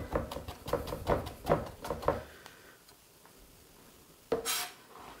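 Chef's knife chopping garlic on a plastic cutting board: quick knocks, about four a second, for the first two seconds, then a pause. A short scrape follows near the end.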